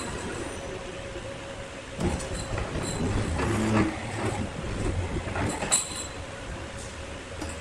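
Large sawmill machinery running. It gets louder about two seconds in, with irregular clattering and knocks and one sharp bang near six seconds.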